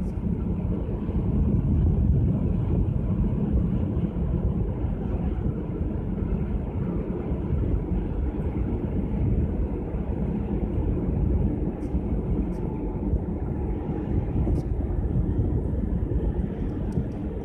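Wind buffeting the microphone on the open top deck of a moving cruise ship, a steady low rumble that rises and falls unevenly.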